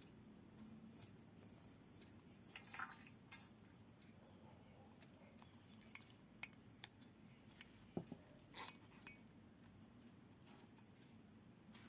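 Faint, scattered clinks and taps of glassware and utensils against near silence. A cluster comes about three seconds in and several more between six and nine seconds, the sharpest about eight seconds in.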